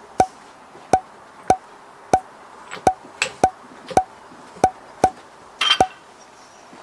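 A series of about a dozen short, identical wood-block-like knocks, roughly one every half second, each with the same brief ring at one pitch. They sound like an added sound effect marking each item that pops into view, and there is a short rustle a little before the end.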